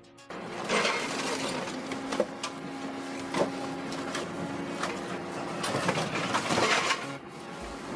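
Large wood chipper running under load, a steady mechanical din with a held hum, broken by several sharp cracks and knocks as wood goes through. It starts abruptly just after the beginning.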